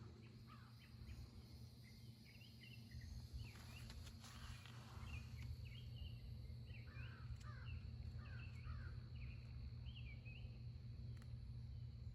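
Small birds chirping outdoors in quick runs of short notes, thickest in the middle stretch, over a faint steady low hum.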